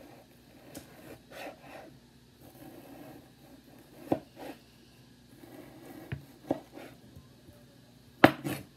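Chef's knife cutting partly frozen beef into cubes on a cutting board: soft sawing strokes with a scattering of sharp knocks as the blade meets the board, the loudest pair near the end.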